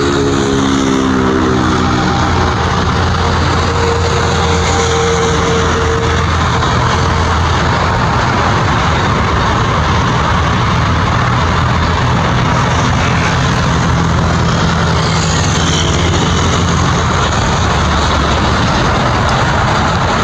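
Boeing 767-300F freighter's twin turbofan engines at takeoff power, running loud and steady as the jet rolls down the runway, lifts off and climbs away. A few of its engine tones shift in pitch in the first seconds as it passes.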